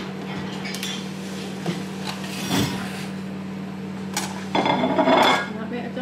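A metal roasting tin and a carving fork clink and scrape as a joint of roast beef is handled. The clatter is loudest for about a second, starting some four and a half seconds in. A steady low hum runs underneath.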